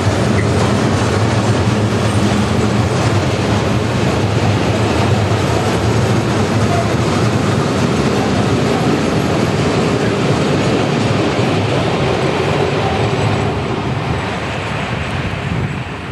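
Heavy freight wagons loaded with steel coils rolling past, a steady rumble and clatter of steel wheels on the rails that fades near the end as the last wagons go by.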